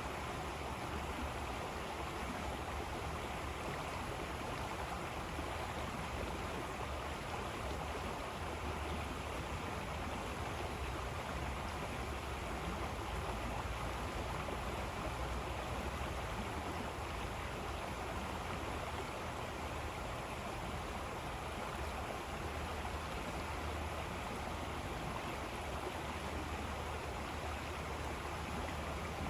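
A river flowing: a steady, unbroken rush of water with a low rumble underneath.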